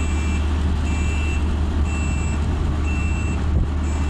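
Mobile crane's diesel engine running steadily, with its warning alarm beeping about once a second.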